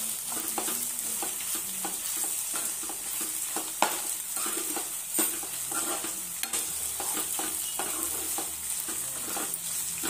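A spatula stirring and scraping spinach and gongura leaves in a non-stick kadai, with frequent short scrapes and clicks against the pan over a steady sizzle of frying.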